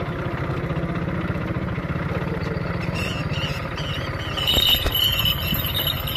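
Motorcycle engine running steadily at low speed, heard from on or beside the bike. A high, wavering squeal joins in about three seconds in and is loudest near the end.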